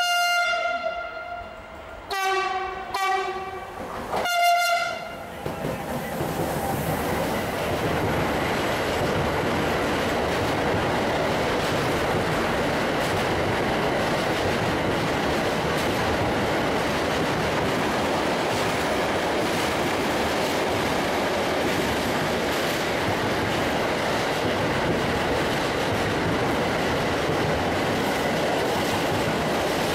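A freight locomotive's two-tone horn as it approaches: a long high note, two short low notes, then a short high note. The container freight train then passes close by, with a steady noise of wheels on rails that continues to the end.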